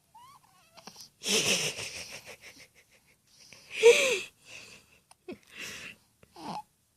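A baby's breathy, excited vocalizing: a long breathy squeal about a second in, a short pitched coo near four seconds, and a few small breaths and squeaks.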